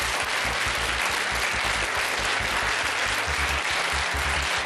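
Studio audience applauding steadily, greeting a correct answer.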